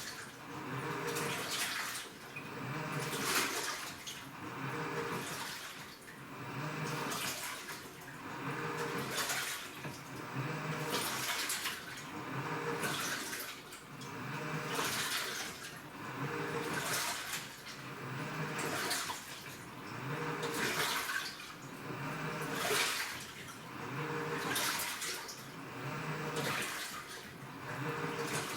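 Washing machine in its wash cycle: water sloshing in the drum, swishing in a steady rhythm about once every two seconds.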